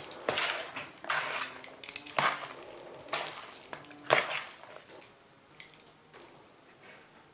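Metal kitchen tongs scraping and clicking against a plastic bowl as spaghetti is tossed in a carbonara sauce, in short strokes about once a second, growing fainter after about four seconds.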